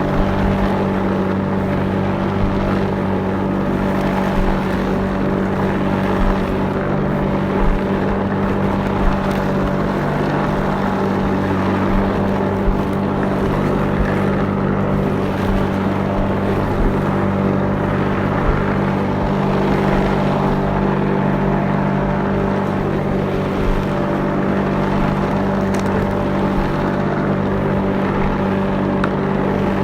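Lawnmower engine running steadily while mowing grass, a constant low hum with small brief rises in level.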